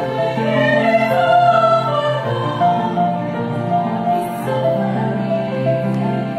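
A girls' choir singing in harmony, with long held notes.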